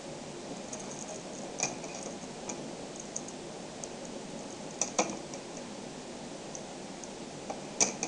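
Small magnetic balls clicking as they snap together and are pulled apart by hand: scattered sharp ticks at an uneven pace, the loudest pair about five seconds in and another near the end.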